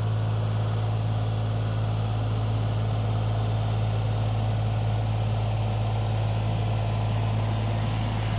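Diesel tractor engine running at a steady speed: a constant low hum with no change in pitch or loudness.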